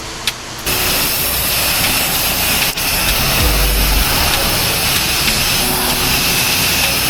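Pressure washer spraying water: a loud, steady hissing jet that starts suddenly about half a second in and runs on, with a brief break near three seconds.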